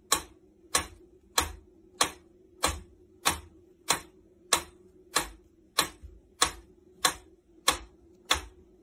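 Mechanical pendulum metronome ticking steadily, about one and a half ticks a second.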